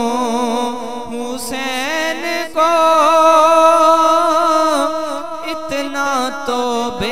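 Male voice singing a manqabat in a slow, ornamented melody with no clear words, holding one long note from about two and a half seconds to nearly five seconds in.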